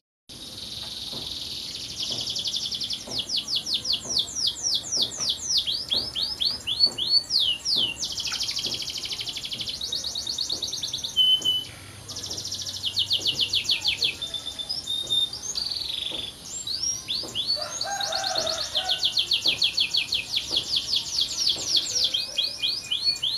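Domestic canary singing a long, high-pitched song of fast repeated notes and rapid sweeping trills, with a couple of short pauses.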